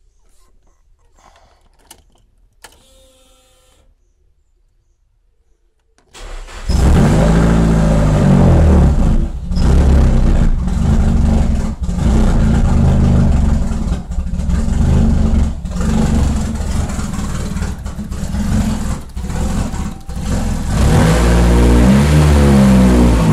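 Nissan Silvia engine starting for the first time after a repair: a few faint clicks, then the engine catches about six seconds in and runs loud. It is revved in repeated blips, the throttle worked by hand at the throttle body.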